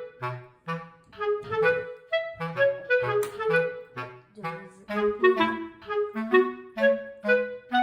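Background music: a bouncy tune of short, detached notes over a bass line.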